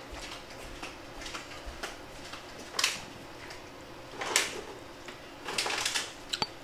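Eating sounds: chopsticks and a spoon clicking against a ceramic bowl, with a few short louder noisy sounds about three, four and six seconds in as food is taken and eaten.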